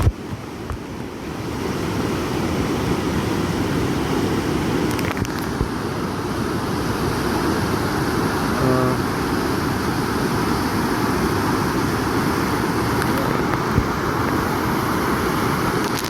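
Steady rush of fast-flowing floodwater, with a brief pitched sound about halfway through.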